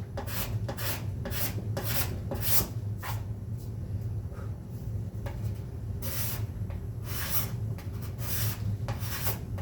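Steel card scraper drawn in short repeated strokes over a wooden board to level hardened two-part epoxy filler in its cracks and knots, about two scrapes a second with a pause of a couple of seconds midway.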